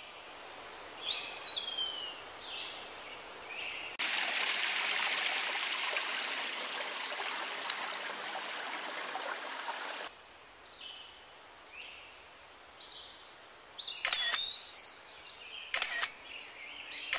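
Forest ambience with songbirds giving short falling whistled calls. A steady rushing hiss comes in abruptly about four seconds in and cuts off sharply some six seconds later. A couple of sharp clicks come near the end.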